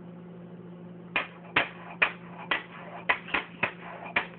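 Pistol sound effect: a quick series of about nine sharp pops, starting about a second in and spaced roughly a third to half a second apart.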